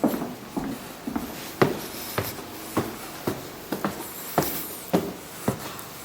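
Footsteps climbing a flight of stairs in an unfinished house: about a dozen steady, evenly spaced thuds, roughly two a second.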